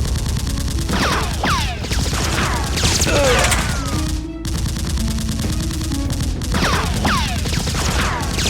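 Rapid bursts of gunfire sound effects with repeated falling whistles, over background music.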